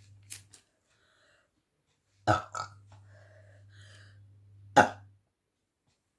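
A woman burping after drinking carbonated cola: a quick pair of short burps about two seconds in, then a single louder burp near the end.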